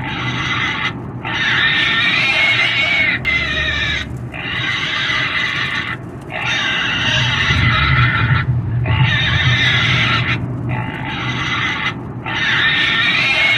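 A pig squealing in a long run of shrill, wavering screams, each a second or two long, with brief breaks between them.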